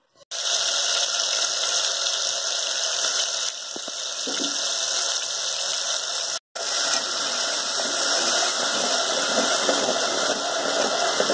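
Ground masala paste sizzling in hot oil in an aluminium pot, a steady hiss that cuts out for a moment about six and a half seconds in. Near the end a steel spoon stirs it.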